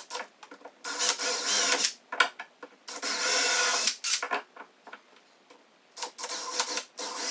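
DeWalt cordless drill boring pilot holes through a door hinge's screw holes into the timber door lining, running in several short bursts, the longest about a second, with pauses between.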